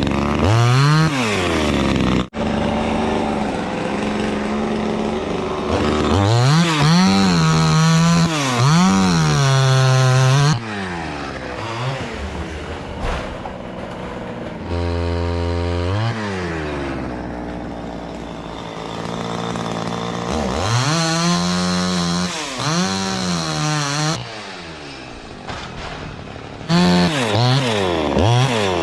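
Two-stroke chainsaw running hard, revving up and falling back again and again, with quieter idling stretches in between, as it works on a teak tree.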